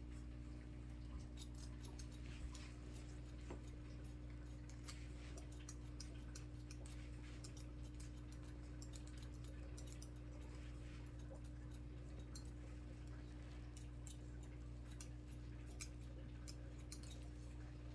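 Barber's scissors snipping hair in quick, irregular clicks, over a steady low hum.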